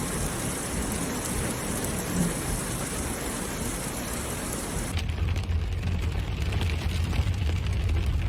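Heavy rain falling steadily. About five seconds in, the sound cuts abruptly to a deeper, rougher rumble.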